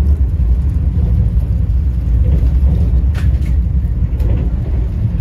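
Vande Bharat Express electric multiple-unit train running at speed, heard inside the coach as a steady low rumble, with a couple of sharp clicks about three and four seconds in.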